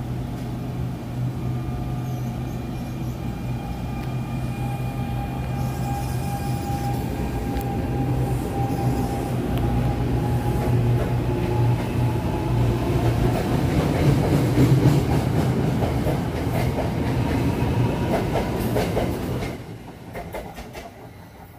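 NJ Transit Arrow III electric multiple-unit train running past close by, with a steady electric hum and a faint high whine. Its wheels click over the rail joints more and more, loudest about two-thirds of the way in. The sound drops off suddenly near the end as the last car goes by.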